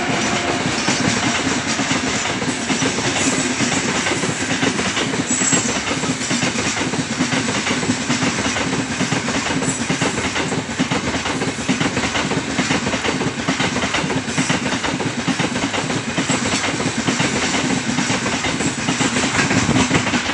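Freight train of open gondola wagons rolling past at speed close by: a steady, loud rumble and rattle of wheels on the rails, with clickety-clack from the wheel sets.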